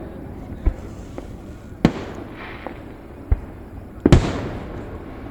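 Aerial fireworks bursting: a string of booms at irregular intervals, the loudest about two seconds in and a doubled one about four seconds in, each dying away slowly after the bang.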